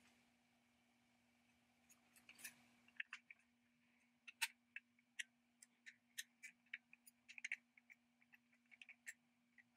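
Faint, irregular clicking of a caulking gun's trigger and plunger rod as a tube of white adhesive is squeezed out, starting about two seconds in, over a faint steady hum.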